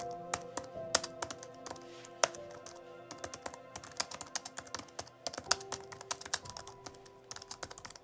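Typing on a computer keyboard: quick, irregular key clicks that go on throughout, over soft background music with long held notes.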